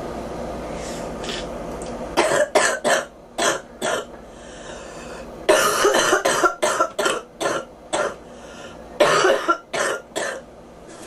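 A girl coughing in three fits of quick coughs: about five in the first, a longer run of about eight in the middle, and about four in the last, with short pauses between them.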